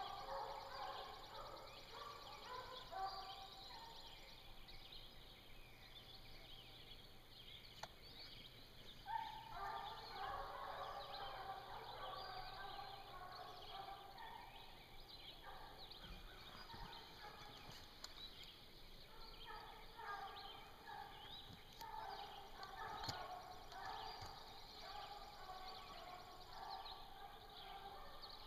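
A pack of hounds baying faintly in chorus as they run a black bear's track, the bawling coming in waves and dropping away for a few seconds about five seconds in before picking up again. Songbirds chirp throughout.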